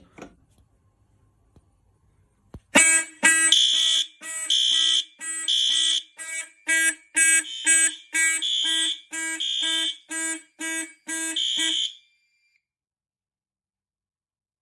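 A click, then the system's fire alarm horns, including a System Sensor P2W horn strobe on high volume, sounding together loud and pulsing about twice a second in a march-time pattern. After about nine seconds they cut off abruptly.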